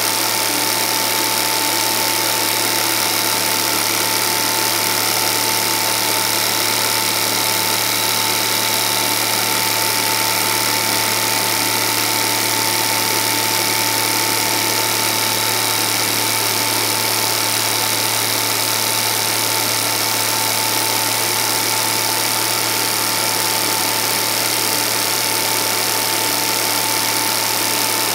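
Home-movie film projector running: a steady mechanical whir with a constant low hum and a thin steady whine, unchanging throughout.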